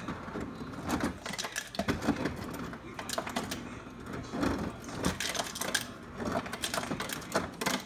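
Refrigerator door ice dispenser running, with a dense, irregular clatter of ice coming down the chute. It cuts off abruptly near the end.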